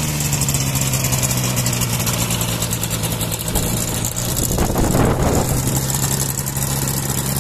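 Ultralight trike's propeller engine idling steadily as the trike taxis on the sand. A brief rush of wind noise comes about halfway through.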